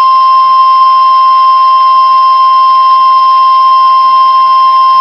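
Emergency Alert System attention tone: one loud, unbroken electronic tone pitched near 1 kHz. It is the alert signal that comes before a spoken weather warning.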